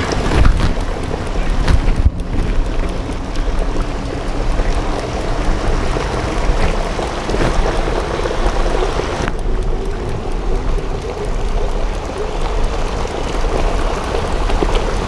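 Wind buffeting the microphone: a steady rushing noise with a deep rumble underneath.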